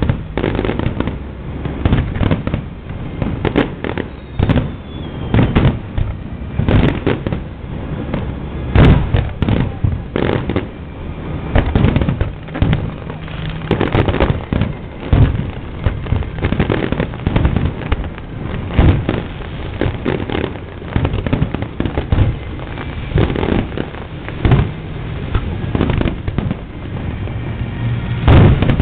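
Fireworks display: aerial shells bursting one after another in a dense, unbroken run of bangs, with a few heavier booms among them.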